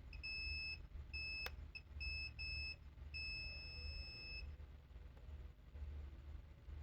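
Digital multimeter in diode mode beeping: a run of high-pitched beeps, some short and one long, on a steady tone as the probes touch the laptop's charging-port power line, the beep marking a short to ground. A sharp click about one and a half seconds in.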